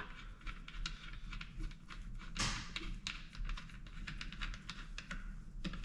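Small irregular clicks and taps from the nozzle fitting of a pressure sandblaster being handled and unscrewed by hand, with one brief louder scrape about two and a half seconds in, over a steady low hum.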